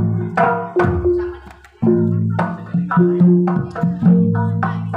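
Jaranan gamelan music: small bronze kettle gongs struck with mallets in a steady pattern of ringing notes, with kendang drum strokes. The playing drops away briefly about a second and a half in, then picks up again.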